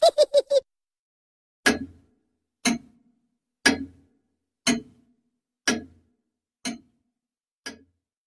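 A clock ticking about once a second, seven even ticks, after a short run of four quick pitched blips at the very start.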